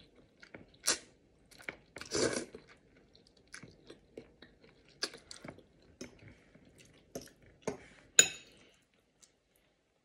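Close-up mouth sounds of eating spaghetti: wet chewing and lip smacks in short bursts, with louder slurps of noodles about one and two seconds in. A sharp click with a brief ring about eight seconds in is the loudest sound.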